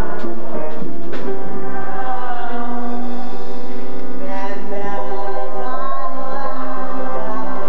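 A show tune performed live on stage. A young man sings the lead, holding long notes, with an ensemble and musical accompaniment.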